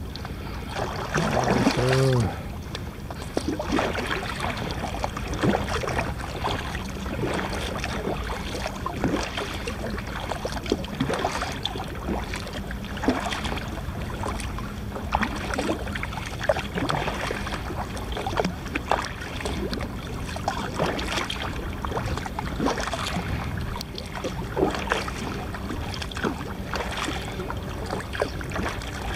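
Water splashing and lapping around a kayak on open sea, in irregular splashes every second or two over a steady wash, with wind on the microphone. A brief low pitched sound comes about two seconds in.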